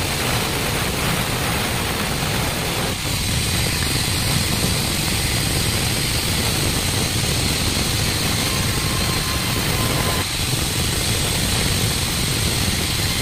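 Large sawmill band saw running steadily as a wooden slab is fed through the blade: a continuous machine drone with the noise of the cut. The sound shifts about 3 s in and again about 10 s in.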